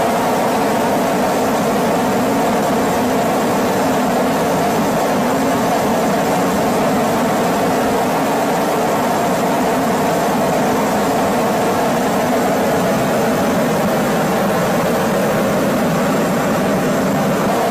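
Helicopter's steady engine and rotor drone, heard from inside the cabin.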